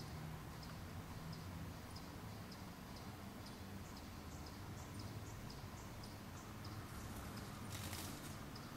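Faint, short, high chirps repeating about twice a second over a low steady hum, with a brief hiss near the end.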